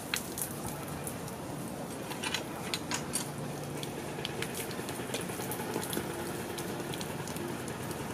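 Hand-lever water pump being worked, water splashing from its spout onto the tiled ground in a steady wash, with scattered short clicks.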